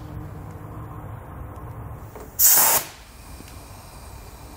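Compressed air hissing in one short, loud burst, about half a second long and about two and a half seconds in, as a shop air chuck is pressed onto the air fill valve to inflate Firestone Ride-Rite air helper springs.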